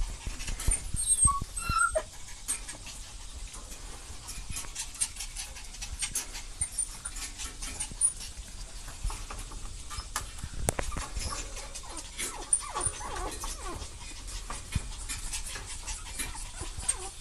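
Chihuahua puppies whimpering, with a few short high squeaks scattered through, over frequent small clicks and rattles of paws and claws scrabbling on the wire cage.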